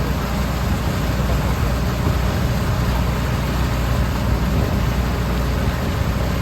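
An engine running with a steady low drone and a wash of noise over it, with no change in speed.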